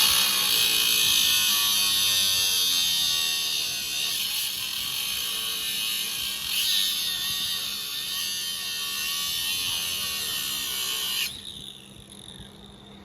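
Angle grinder cutting into the sheet-metal strut tower: a continuous, loud, high-pitched grinding hiss that wavers slightly as the disc bites, stopping abruptly about 11 seconds in.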